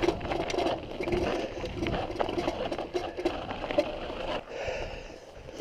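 Carrera Nucleus mountain bike rolling fast over a rough grassy dirt trail. The frame, chain and fittings rattle and click constantly over the bumps, with tyre noise underneath.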